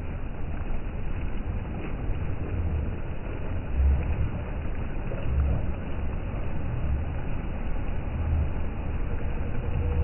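Wind gusting on the phone's microphone, uneven low rumbling pulses over the steady wash of the sea.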